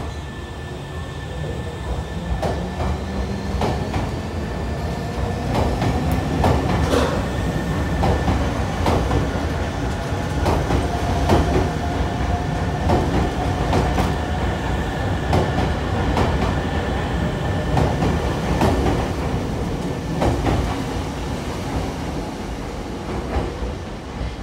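Nankai commuter electric train running through the station, with a low rumble and a string of sharp wheel clicks over the rail joints. Faint motor tones climb slowly in pitch as the train gathers speed.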